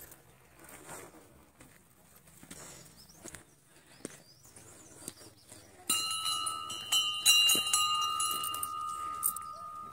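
Metal temple bell struck several times in quick succession about six seconds in, ringing on with a clear, lingering tone that slowly fades.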